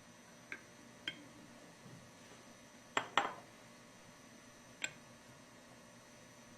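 Light clinks and taps of the pump's unthreaded tri-plates being fitted into the diaphragm pump's air cap: two small taps in the first second, two louder clinks in quick succession about three seconds in, and one more near five seconds.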